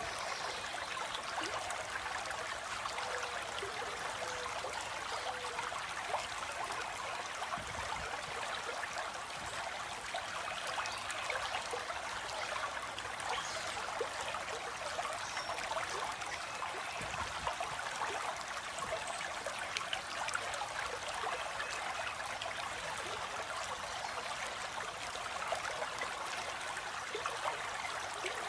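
Flowing stream water, a steady, even rush and trickle.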